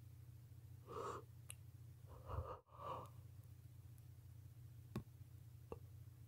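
A woman yawning: soft, breathy airy sounds, one about a second in and two more close together a second later. A steady low hum runs underneath, and two faint clicks come near the end.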